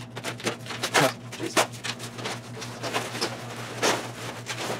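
Plastic wrapping crinkling and tearing as it is ripped off a large metal part, with irregular crackles and rustles.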